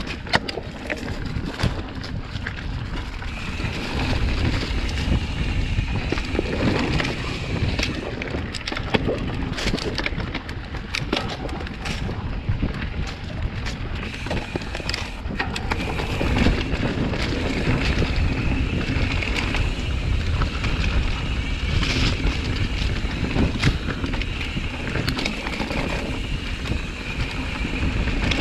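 Mountain bike ridden fast down a dirt singletrack, heard from a camera mounted on the rider: wind buffeting the microphone over a rumble of tyres on dirt, with frequent knocks and rattles from the bike as it hits roots and bumps.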